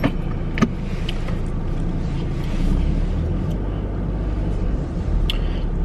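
Steady low rumble of a car heard from inside the cabin, as of a car idling while parked, with two short clicks near the start.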